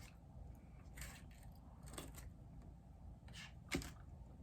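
Faint mouth and eating sounds while chewing a sandwich: a few soft clicks and smacks, the sharpest one a little before the end.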